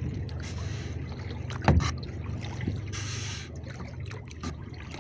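Kayak paddle strokes swishing and splashing in the water over a steady low rumble, with one sharp knock a little under two seconds in.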